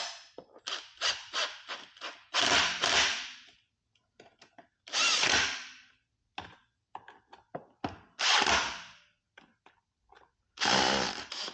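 Cordless drill/driver run in four short bursts of about a second each, driving fasteners to refit a part on an e-bike, with small clicks of parts and tool handling between the bursts.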